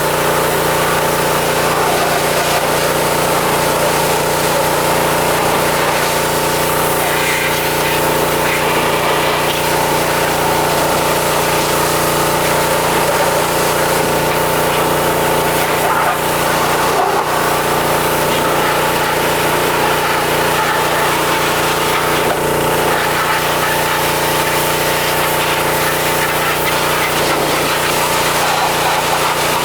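Pressure washer running steadily, its motor giving a constant hum under the hiss of the water jet.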